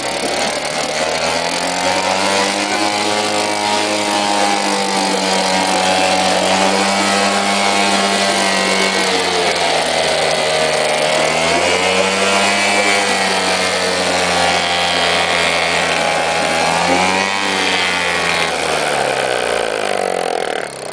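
British Seagull single-cylinder two-stroke outboard motor running just after a pull start, its note rising and falling as it is revved up and down several times, then dropping near the end.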